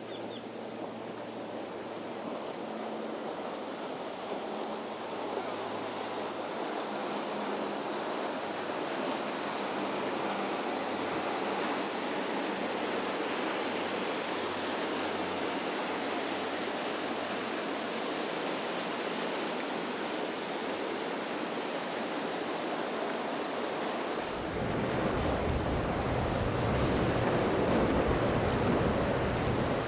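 Steady wash of waves and surf, growing louder over the first ten seconds. About three-quarters of the way through, wind starts buffeting the microphone with a low rumble.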